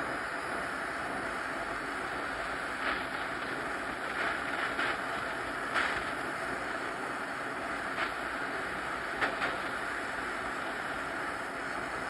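Soldering torch flame hissing steadily while small stainless steel parts are heated for silver soldering, with a few light clicks of metal parts or tools now and then.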